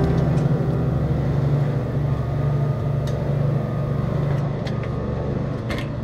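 Steady low mechanical hum, like a building's fan or blower running, with a few short knocks near the end.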